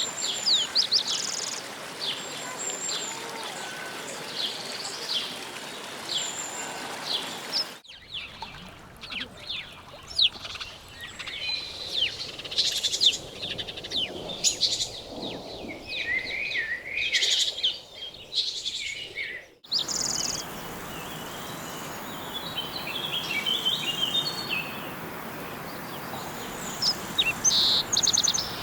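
Birds chirping: many short, quick calls over a steady background hiss of outdoor ambience. Three different recordings follow one another, switching abruptly about 8 seconds in and again about 20 seconds in.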